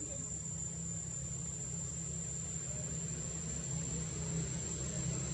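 A steady, high-pitched insect drone, cricket- or cicada-like, over a low steady hum that grows a little louder near the end.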